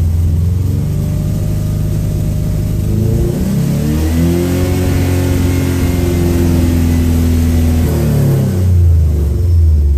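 Subaru EJ257/EJ20K hybrid flat-four engine, heard from inside the cabin, running steadily and then revved about three seconds in. It holds a higher, steady speed for about four seconds, then falls back toward idle near the end.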